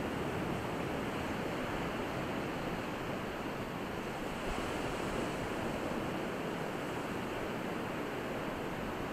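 Steady noise of surf from waves on the shore, an even rush with no pauses or distinct breakers.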